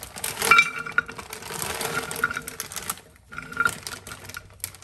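Frozen tater tots poured into an empty slow-cooker crock, a dense rattle of many small hard hits against the insert, breaking off briefly about three seconds in and then starting again.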